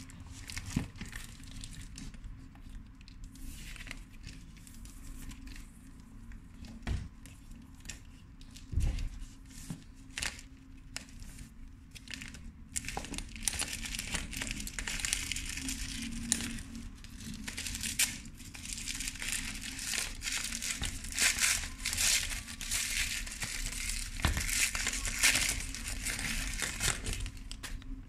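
Packaging wrapping being handled and unwrapped, crinkling and rustling with scattered taps. It becomes denser and louder from about halfway through.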